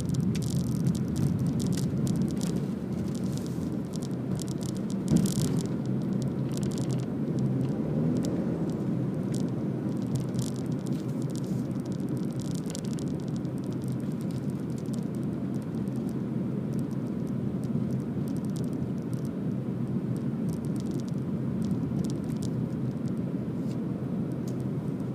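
Steady rumble of a car's road and engine noise heard from inside the cabin while driving, with scattered faint clicks and one brief knock about five seconds in.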